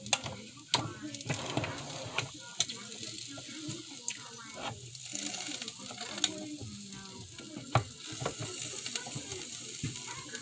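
Waffle batter sizzling and hissing in a hot rotating waffle maker, with several sharp clicks and knocks as the appliance is handled and its lid opened.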